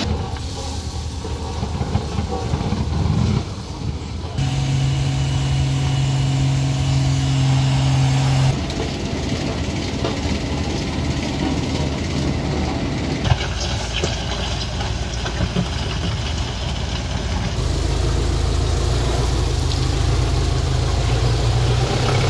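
Truck engines running, in several short clips cut together, so the sound changes abruptly every few seconds; some stretches carry a steady low engine hum.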